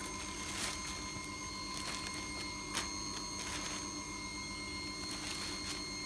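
Clear plastic bag crinkling in a handful of short rustles as dried swiftlet nests are handled inside it, over a steady background hum made of several constant tones.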